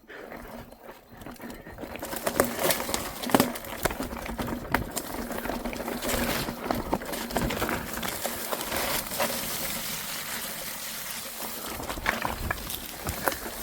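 Rushing water of a stream or waterfall, coming in about two seconds in and running on steadily, with scattered knocks and scuffs of footsteps on wet rock.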